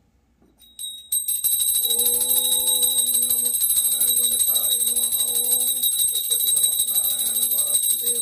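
Puja hand bell rung continuously, a bright fast-fluttering ringing that starts about a second in. About two seconds in a lower held-note melody joins it.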